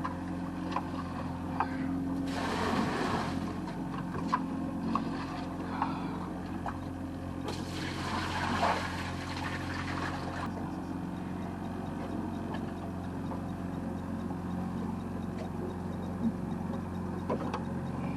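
Boat motor running steadily with a low hum, with two brief hissing rushes, around two and eight seconds in, and a few small clicks.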